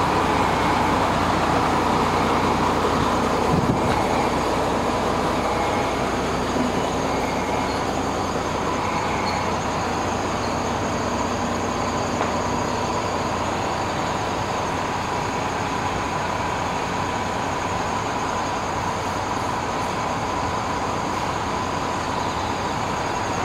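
Diesel railcar of the JR Shikoku Kiha 32 type standing with its engine idling: a steady rumble and hum.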